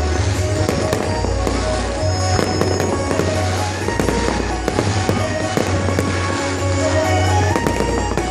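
Fireworks bursting and crackling in quick, irregular bangs over loud music with a heavy bass beat.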